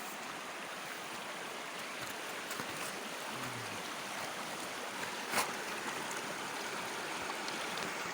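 River water flowing, a steady rushing noise, with a single sharp click about five seconds in.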